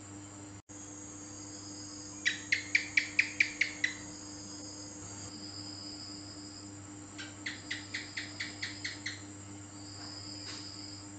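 House gecko (cicak) calling: two runs of about nine quick, sharp chirps a few seconds apart, the first run louder. Under the calls there is a steady low hum, with a few faint short high tones.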